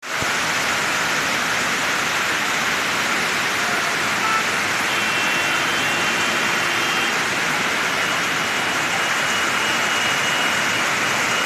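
Heavy rain pouring down in a steady, dense hiss, with a faint high tone drifting in about halfway through.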